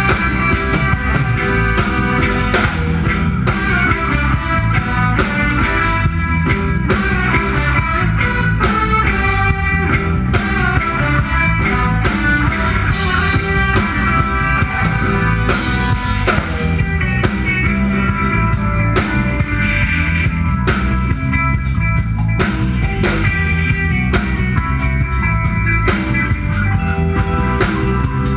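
Live band playing an instrumental passage: electric guitar over a steady drum kit and bass groove.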